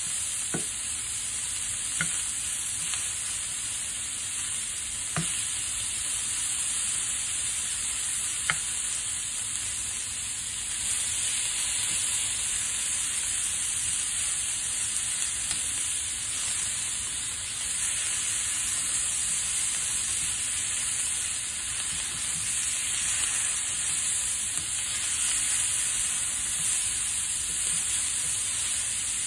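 Sliced sausages and onions sizzling steadily in a frying pan, stirred with a spatula that scrapes and taps against the pan, giving a few sharp clicks in the first ten seconds.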